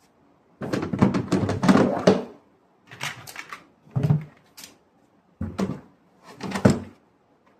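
Milwaukee Packout hard plastic tool boxes being handled, with a series of plastic knocks and clacks in five short bursts, the longest about a second in.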